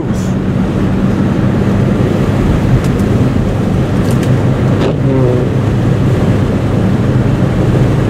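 Car driving on a snow-covered road, heard from inside the cabin: a steady engine hum under loud road and wind noise, with a few light clicks.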